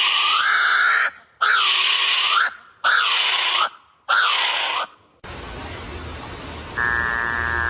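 A bird's harsh, rasping screeches, four of them, each about a second long with short gaps between. About five seconds in they give way to a low hum, and then music-like tones.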